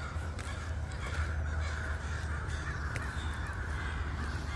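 A large flock of American crows cawing together, many calls overlapping into a continuous din, over a steady low rumble.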